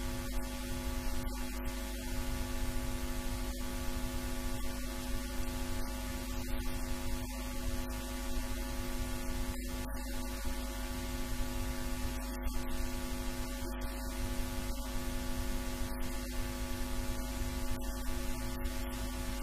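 Steady electrical hum, a constant buzzing tone with evenly spaced overtones, over a background hiss; no speech is heard.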